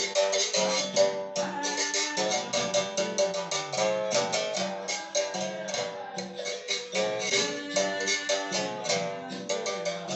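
Brazilian viola (steel-strung folk guitar) strummed quickly in a steady rhythm, playing chords and a melody line of a capoeira tune.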